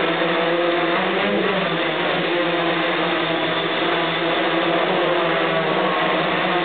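The six motors and propellers of a hexacopter in flight, their motors tilted at 40 degrees. They make a steady loud buzzing whine made of several tones, which shift slightly up and down as the motor speeds are adjusted while it hovers and drifts sideways.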